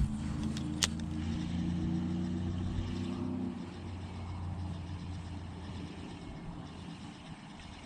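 A motor vehicle's engine running steadily with a low hum, then fading away about three and a half seconds in. A single sharp click sounds just under a second in.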